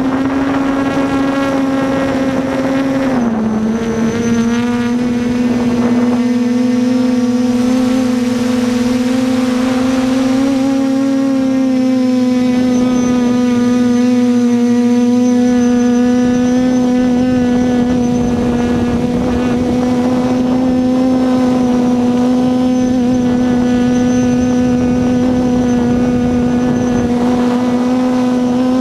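Quadcopter's electric motors and propellers humming steadily in flight, heard close up from the drone's own onboard camera. The pitch dips briefly about three seconds in, then holds steady.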